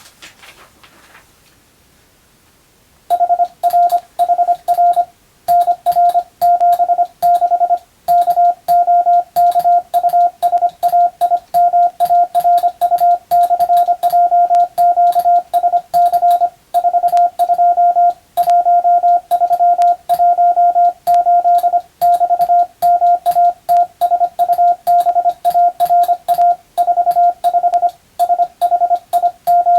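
Morse code sent as a single steady tone keyed on and off in dots and dashes at a brisk, even pace. It starts about three seconds in, after a short pause.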